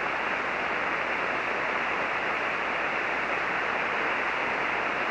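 Steady hiss of band noise from a ham radio receiver on 40-metre single sideband, heard while neither station is talking. The sound stops sharply above about 3 kHz at the edge of the receiver's passband.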